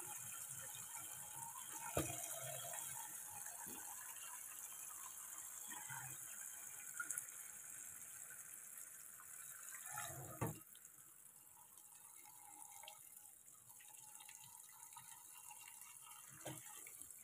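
Water running from a tap into a sink, cooling the blanched cauliflower and shrimp in cold water, with a few knocks and clatters. After a clunk about ten seconds in, the running water gets quieter.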